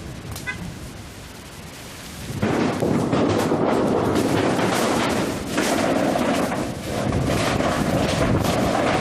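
Squall wind buffeting the microphone: a steady rush at first, then about two and a half seconds in a sudden loud, crackling blast of gusts that eases briefly twice.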